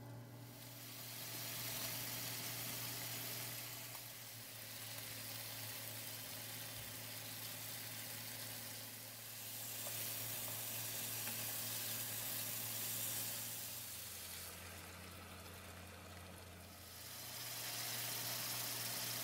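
Fish curry sizzling in a pan on the stove, the hiss swelling and fading in several stretches over a steady low hum.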